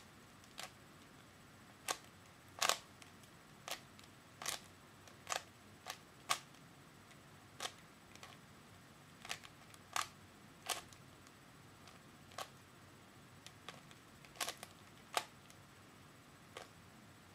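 Layers of a 3x3 Rubik's cube being turned by hand: sharp plastic clicks at an uneven pace, about one a second, some in quick pairs.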